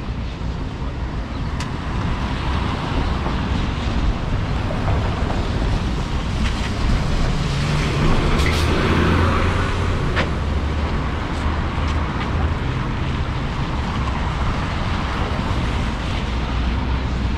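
Steady city street traffic noise with a low rumble, swelling as a vehicle passes about eight to ten seconds in.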